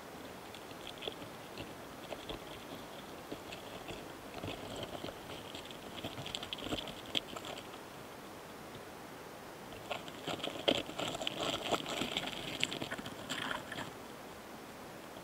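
Close-miked crackling and scratching of Gaurotes doris longhorn flower beetles (カラカネハナカミキリ) moving over a flower head during courtship and mating. The crackles come in two spells, the first starting about four seconds in and a louder one about ten seconds in.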